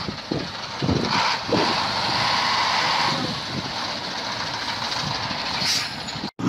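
Heavy six-wheel dump truck's diesel running under strain while it is stuck in deep mud: a steady, rough mechanical noise with a few knocks, and wind on the microphone. It cuts off abruptly near the end.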